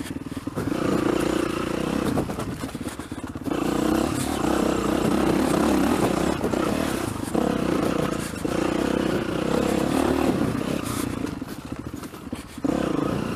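Dirt bike engine on the move, its note rising and falling as the throttle is opened and closed, dropping away briefly several times.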